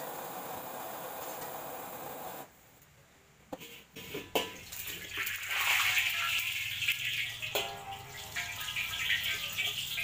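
A gas wok burner runs steadily under a new stainless steel wok being heated for seasoning, breaking off about two and a half seconds in. After a few metal knocks, water hitting the very hot wok hisses and boils off violently into steam, with spatula scraping in the wok near the end.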